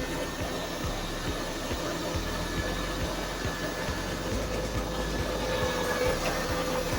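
Engine running steadily, with a constant whine over a rumbling noise.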